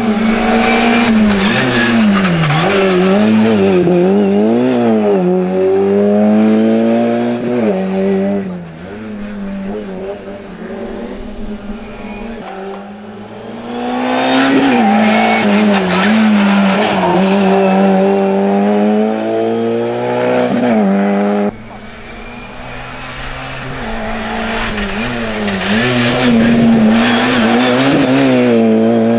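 Small hatchback race car's engine revving hard, its pitch rising and falling over and over with the gear changes and lifts through the slalom gates. The engine fades off after about eight seconds and swells back up from about thirteen seconds. It cuts off abruptly about 21 seconds in and then builds up again.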